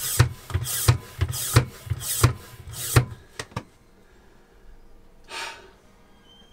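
Hand plunger oil-suction pump being worked quickly, about three strokes a second, each stroke a rasping rush of air with a thud, then a couple of clicks as it stops about three seconds in. The pump is not drawing oil up through the dipstick tube. A short hiss follows about five seconds in.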